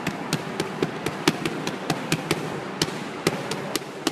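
Boxing gloves smacking focus mitts in a fast punch combination: a quick run of sharp slaps, several a second, with a brief pause a little past halfway before the next flurry.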